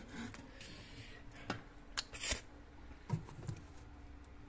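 Light clicks and knocks of steel bowls and a plastic drawer being handled inside an open refrigerator, a few separate taps through the middle.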